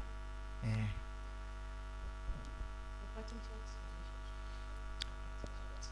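Steady electrical mains hum: a low drone with a ladder of fainter steady tones above it, with one short voice sound about a second in.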